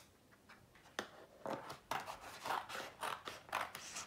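Scissors cutting a sheet of drawing paper in a quick run of short snips, about two or three a second, starting after a sharp click about a second in.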